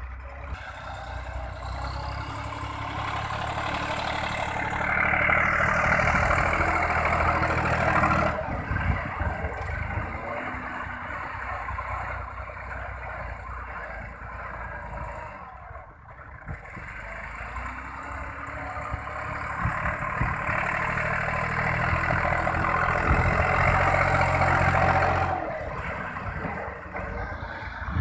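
Massey Ferguson 260 Turbo tractor's diesel engine working under load as it pushes a blade-full of earth, its sound swelling and easing, louder twice as the blade pushes.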